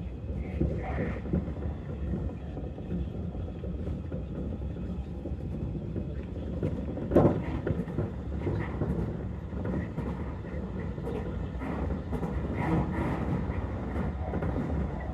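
Commuter electric train running between stations, heard from inside the passenger car: a steady low rumble, with a loud knock about seven seconds in and scattered clicks later on.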